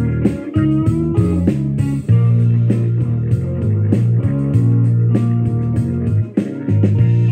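Electric guitar playing a blues line with bent notes over a steady bass line.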